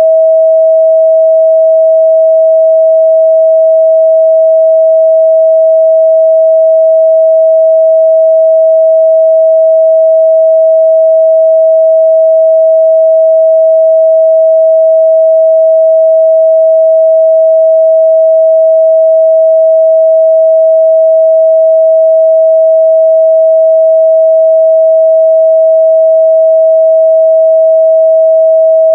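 A steady, loud 644 Hz sine-wave test tone: one pure, unchanging pitch.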